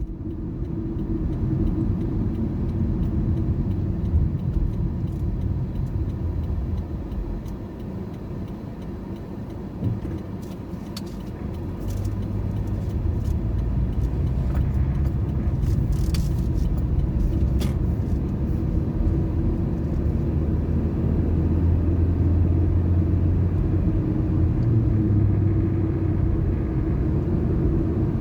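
Car driving along a road: a steady low rumble, with a few faint clicks in the middle.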